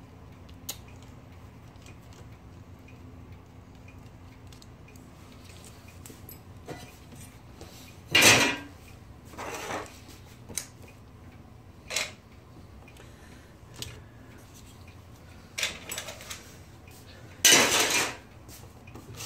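Metal typewriter parts and tools clinking and clattering as the machine is taken apart, in a few short separate bursts, the loudest about eight seconds in and near the end, over a faint steady hum.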